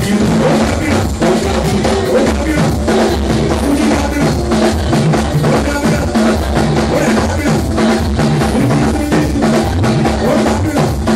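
Live church praise music at a steady beat, driven by drums including a talking drum, with a woman singing lead through a microphone.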